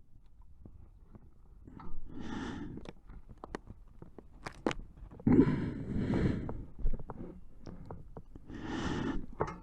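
Footsteps crunching over rough ground, with many small clicks and three louder swishes each about a second long.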